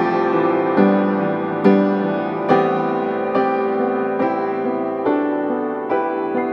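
Background piano music: slow, gentle chords struck about once a second, each ringing out before the next.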